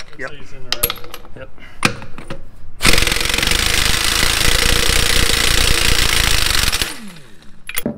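Ingersoll Rand 2146 3/4-inch quiet air impact wrench hammering on a truck wheel's lug nut for about four seconds, starting about three seconds in, while running overpressured with its gauge in the red. Before that come a few sharp metallic clanks as the socket is fitted onto the nut.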